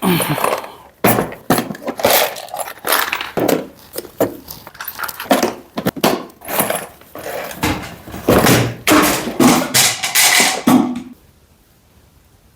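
A busy run of irregular thuds, knocks and rattles, as of things being handled and set down on a table, stopping abruptly about eleven seconds in.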